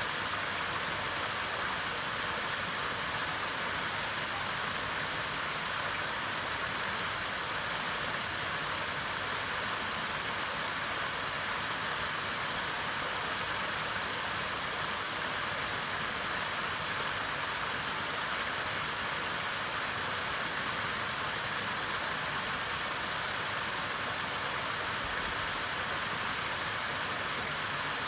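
Waterfall: water falling and rushing, a steady, unbroken hiss with no changes.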